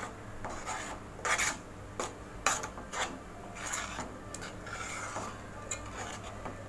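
Steel spoon stirring and scraping through thick curry gravy in a stainless steel pan, with irregular scrapes and light clinks against the pan about once a second.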